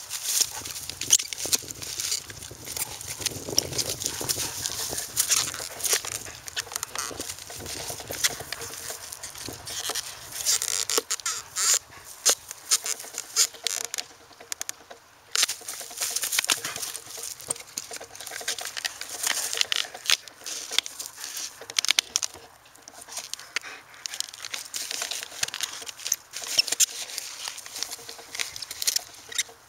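German Shepherd chewing and tearing at a paper-covered toy: irregular crinkling and crackling of paper, with many sharp crackles and brief lulls.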